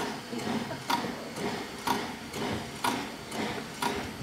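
Narrow-gauge steam locomotive rolling slowly, heard from the footplate: a steady rhythm of sharp metallic clicks, about one loud click a second with a softer one between, over a low running rumble.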